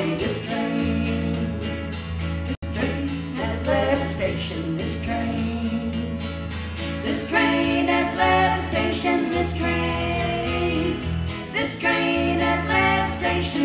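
Women singing a song in harmony to acoustic guitar and bass guitar, the bass holding steady low notes. The sound cuts out very briefly about two and a half seconds in.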